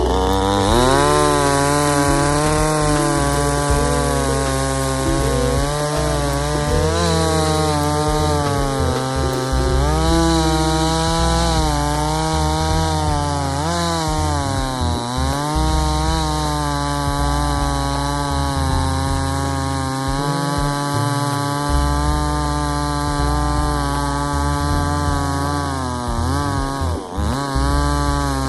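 JONSER BS5800 two-stroke petrol chainsaw revving up and running at high throttle while cutting wood. The engine pitch sags several times under the load of the cut and picks back up, with one deep dip near the end.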